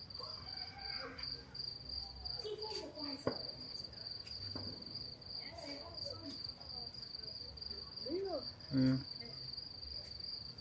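Crickets trilling steadily in one unbroken high tone. Faint sharp pops of distant fireworks come about three and four and a half seconds in.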